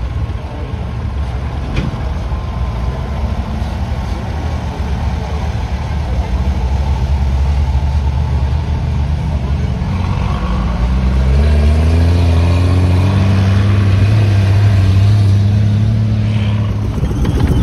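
Engines of wheeled armoured military vehicles running as they drive past on a dirt track. About two-thirds of the way in, one engine grows louder and rises in pitch as it accelerates, then drops away near the end.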